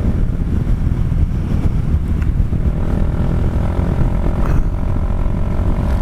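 Kymco Xciting 400i maxi-scooter's single-cylinder engine running steadily at high speed, around 150, under heavy wind rumble on the microphone.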